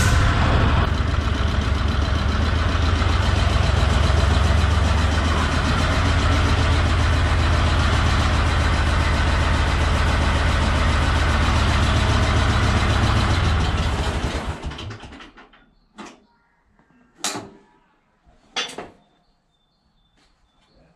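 Tractor engine running steadily, then shut off about two-thirds of the way in, winding down within about a second. Three short knocks follow.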